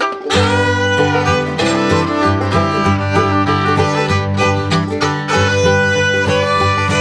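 Background music: an upbeat fiddle and guitar tune with a steady beat.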